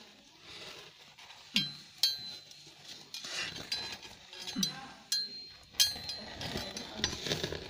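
Gold- and silver-coloured metal medals clinking against each other as they swing on their lanyards. There are several sharp clinks, each ringing briefly.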